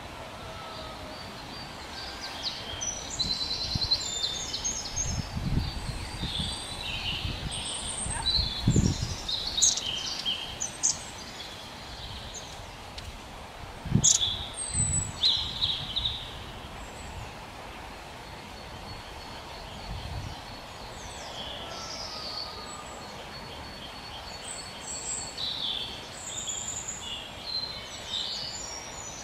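Small birds chirping and singing: many short high calls and brief trills, one after another. A few low thuds come through, the loudest about nine and fourteen seconds in.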